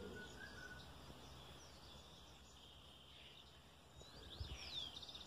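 Near silence of an outdoor riverbank, with faint bird chirps about four seconds in.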